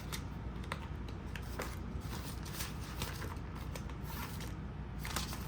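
Faint rustling and a few light clicks of paper banknotes and cash envelopes being handled, over a steady low hum.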